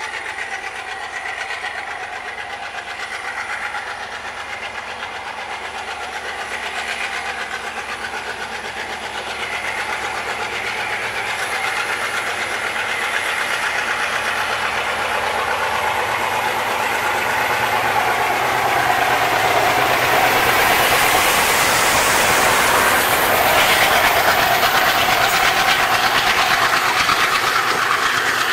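WDP-3A diesel-electric locomotive hauling a passenger train, its engine chugging under load as it approaches and grows steadily louder. It passes close at its loudest for the last third, with the coaches' wheels running along the rails.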